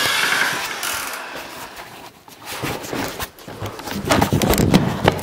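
A handheld camera jostled in a wooden room: a run of scuffs, knocks and rustling that grows louder about three seconds in, after a hiss that fades out over the first two seconds.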